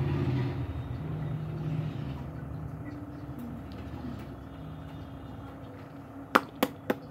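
A low, steady hum that slowly fades, then three sharp clicks near the end.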